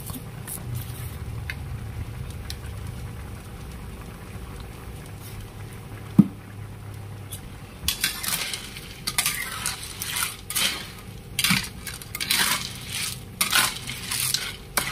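A wok of sea snails in kimchi broth boiling hard over a gas flame: a low steady hum with a single sharp click about six seconds in, then from about eight seconds in irregular bursts of bubbling and clinking from the pan.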